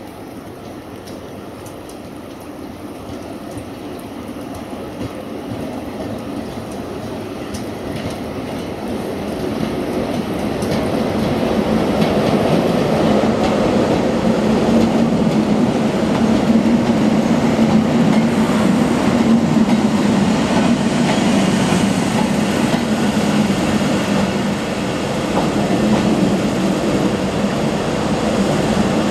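A pair of Class 90 electric locomotives running slowly past. The hum and rumble of the locomotives and their wheels on the track grow louder over about the first twelve seconds and then stay loud.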